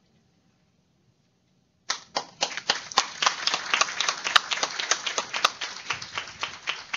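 A small group of people applauding, with individual claps distinct. The clapping starts suddenly about two seconds in and thins slightly near the end.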